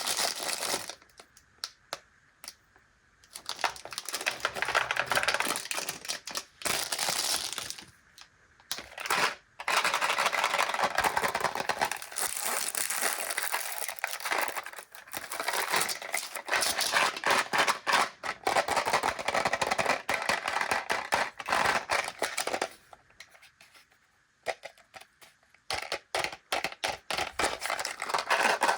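Candy packaging being handled and opened: long stretches of crinkling and tearing, with short clicks and taps at the start and near the end.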